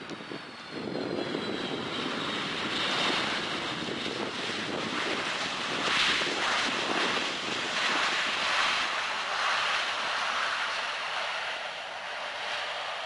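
Boeing 757-200 jet airliner rolling out on the runway just after touchdown, its engines loud. A faint falling whine is heard at first, the engine noise swells about a second in, and it eases a little near the end.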